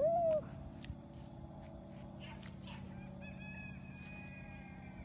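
Chickens calling: a short, loud squawk that rises and falls right at the start, then a faint, drawn-out rooster crow over the last two seconds.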